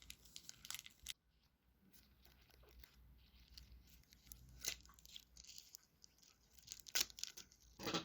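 Faint tearing and crinkling of a Bakugan card pack's wrapper being opened, in short scattered crackles with a brief pause after the first second.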